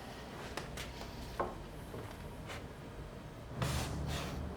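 Wooden drum staves being handled: a few light, scattered wooden knocks, then rubbing and shifting of wood near the end.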